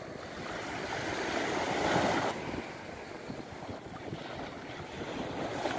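Mediterranean Sea waves washing onto a beach, a steady rush of surf that swells to a peak about two seconds in and then eases, with some wind on the microphone.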